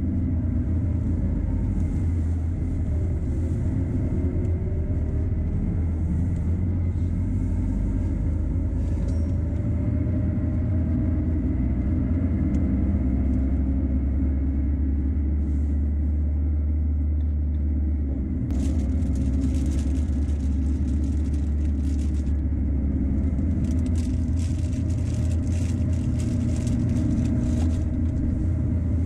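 Peugeot Boxer van driving, its diesel engine and road noise making a steady low rumble as the engine note drifts up and down. A hiss comes and goes in the second half.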